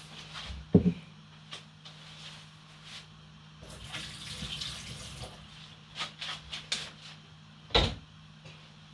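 A kitchen tap runs for a second or two, filling a pot, among knocks and clatter of cookware. Near the end comes a loud clank as the steel saucepan is set down on the gas hob.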